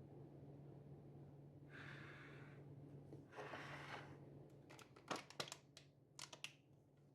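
Faint handling sounds while packing a lunch box: two brief rustles, then a run of light clicks and taps, over a faint steady hum.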